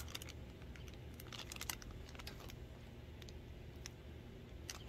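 Faint, scattered crinkles and clicks of a plastic candy bag being pulled open and handled, with a small flurry about a second and a half in and another near the end, over a low steady background rumble.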